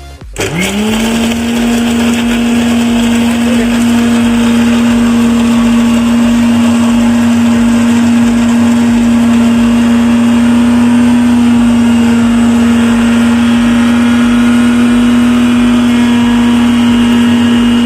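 Electric mixer grinder grinding Gems chocolates: the motor is switched on just after the start, spins up quickly and then runs at a steady high speed with an even hum.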